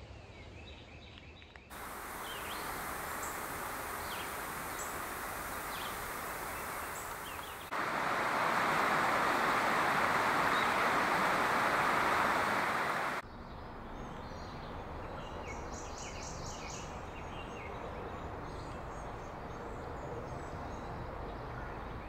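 Outdoor ambience of scattered songbird calls and short song phrases over a steady rushing hiss. The hiss changes abruptly at cuts about 2, 8 and 13 seconds in, and is loudest from about 8 to 13 seconds, where the bird notes are drowned out.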